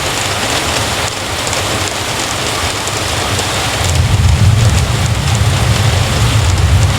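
Heavy rain falling steadily, with a low rumble that swells about four seconds in.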